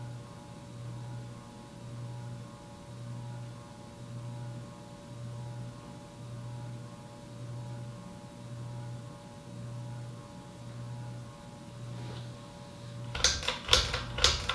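Codep Stratosphere IV hugger ceiling fan running, its motor hum swelling and fading about one and a half times a second over a steady higher buzz: the hum and buzzing typical of lower-end generic hugger fans. A few sharp clicks come near the end.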